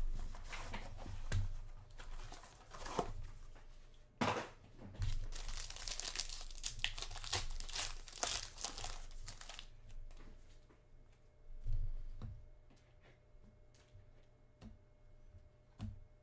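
Foil wrapper of a Panini Gold Standard football card pack being torn open and crinkled, a dense crackling for the first ten seconds or so. After that come lighter scattered clicks and taps as the cards are handled.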